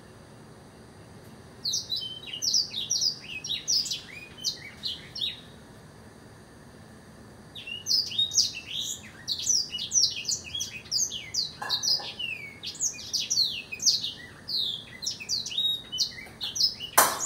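A caged blackthroat (black-throated canary) singing: after a short quiet, a burst of fast, high sweeping notes, a pause of about two seconds, then a long run of rapid twittering song. A brief sharp sound near the end is the loudest moment.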